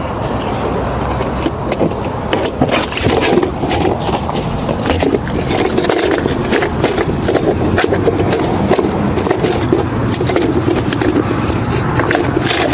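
Clicks, scrapes and rattles of a tri-fold one-touch camp table being unfolded and its folding legs pulled out, over a steady background noise.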